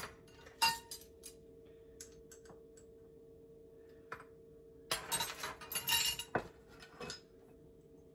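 Metal measuring spoon clinking and scraping against a spice jar and bowl while cinnamon is measured out: a sharp clink about half a second in, scattered light taps, then a busy run of scraping and tapping from about five to six and a half seconds. A steady faint hum runs underneath.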